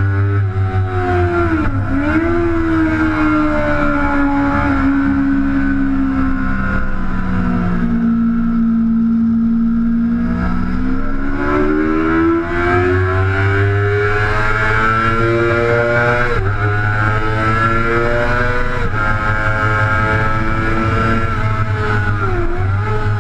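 Sport motorcycle engine at speed, heard from a camera mounted on the bike: the revs climb with sharp dips at each gear change. They fall away to a low steady note around eight to ten seconds in, then build hard again with further quick shifts later on.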